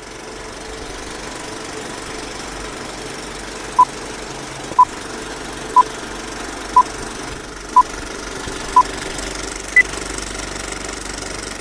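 Old film projector sound effect running steadily under a countdown leader, with a short beep once a second: six at the same pitch, then a last, higher beep about ten seconds in that closes the countdown.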